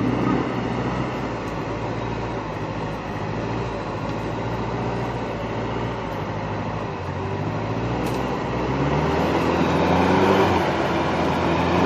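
Toyota Hilux pickup's engine working under load as it crawls through deep mud, with the revs rising about eight seconds in.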